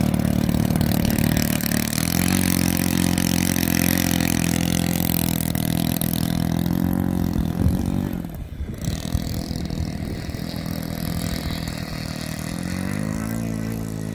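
OS FS-120 four-stroke glow engine on a model airplane running at low taxi throttle as the plane rolls across the grass. It is quieter after about eight seconds, and its pitch rises near the end.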